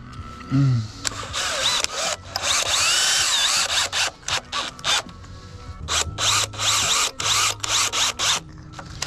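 Power drill driving screws into framing lumber: a long run of about three seconds with a whine that rises and falls, then a string of short bursts near the end.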